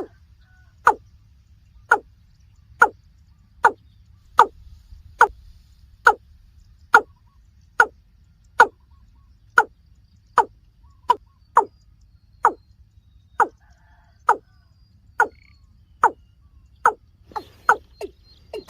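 Water cock calling: a long series of short, hollow notes at roughly one per second, quickening near the end.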